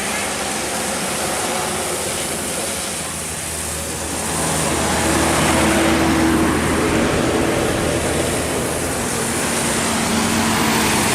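Engine and tyre noise of a large bus passing on the road, a steady low hum that grows louder about four seconds in.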